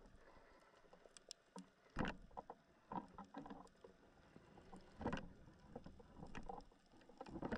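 Faint, scattered clicks and a few soft knocks, heard through an underwater camera housing at about 40 m depth.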